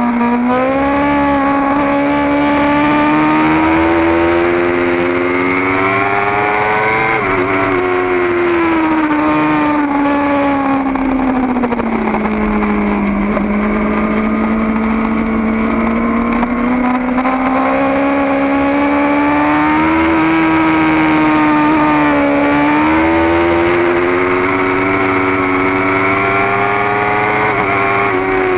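Kawasaki Ninja ZX-10R's inline-four engine running hard at high revs on track, heard from on the bike. Its pitch climbs, drops sharply about seven seconds in, sinks low for a few seconds in the middle, then climbs again with short dips near the end as the rider works the throttle and gears.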